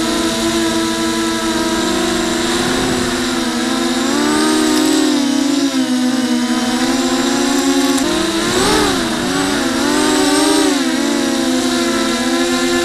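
FPV quadcopter's electric motors and propellers whining, heard from on board, the pitch rising and falling as the throttle changes, with a quick dip and rise about eight seconds in.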